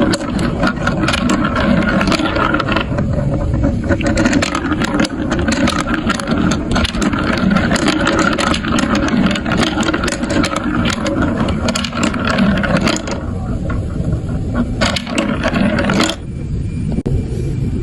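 Marbles rolling down a plastic marble-run track: a steady rolling rumble with dense clicking and clattering as they knock along the pieces. The clicking thins out for a few seconds near the end, then a few sharp clacks return.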